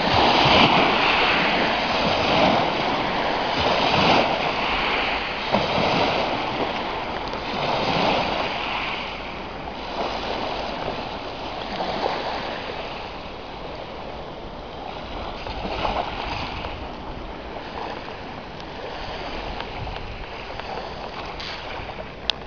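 Small Rhine river waves washing up onto a gravel and pebble shore, one surge every two seconds or so, easing off in the second half. A brief sharp click near the end.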